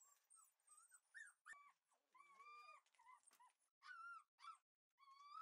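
Shiba Inu puppy whining: a string of short high-pitched whimpers, with a longer drawn-out whine about two seconds in and a few arching whines toward the end.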